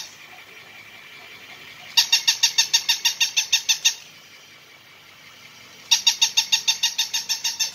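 Battery-operated plush toy puppy sounding its electronic yapping: two runs of rapid, identical high-pitched yips, about seven a second, each lasting about two seconds, one about two seconds in and one near the end.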